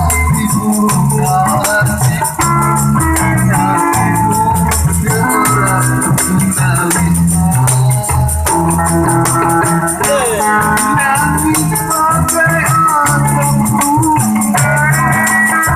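Instrumental music with a steady beat: a rattling shaker-like percussion keeps time over a repeating bass line and a keyboard melody.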